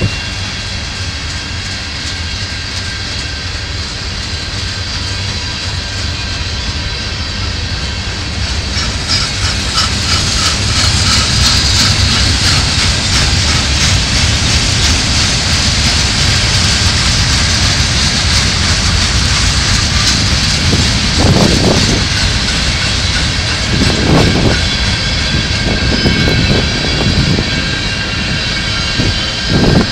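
Slow-moving freight train cars rolling past: a steady rumble of steel wheels on rail, with a high metallic ringing from the wheels that grows louder about ten seconds in. A few short low thumps come in the second half.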